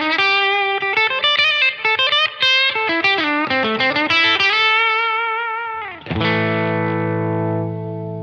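Amplified Telecaster-style electric guitar playing a single-note lead line with string bends, then, about six seconds in, a chord struck and left to ring, slowly fading.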